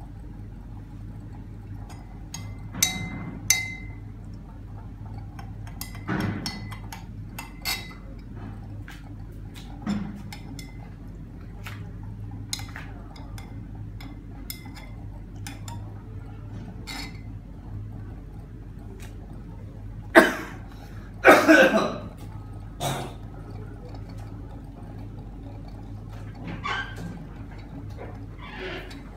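Glass stirring rods clinking and tapping against glass beakers, a dozen or more short ringing clinks. Around twenty seconds in there is a louder, longer scraping rattle. A steady low hum runs underneath.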